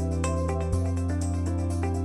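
Background music: a held bass note that changes about a second in, under a run of short, bright melody notes.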